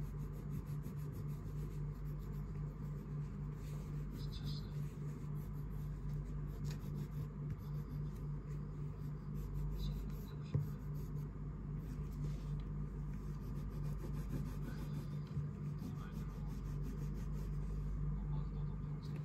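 A yellow crayon scratching over a paper colouring page in quick back-and-forth shading strokes, over a steady low hum. A single brief click about halfway through.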